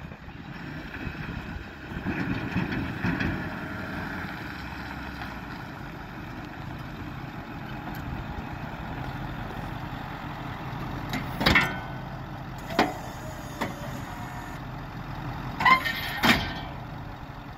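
2008 Ford F-450 truck's engine running as the truck drives over dirt, louder for a couple of seconds near the start. In the second half come several sharp clunks, a few seconds apart, as the Boss snow plow blade is swung from one angle to the other.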